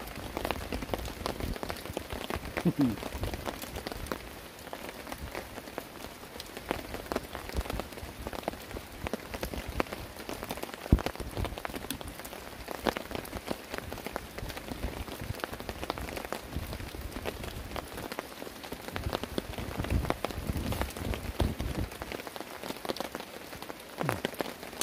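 Steady heavy rain, with many separate drops striking close by, and one sharper tap near the middle.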